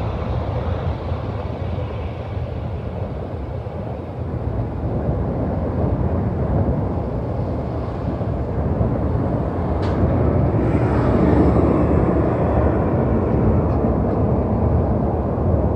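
Airbus A321 twin-engine jet airliner taking off, a steady jet roar with a deep rumble that swells as the plane lifts off and climbs past, loudest about eleven seconds in.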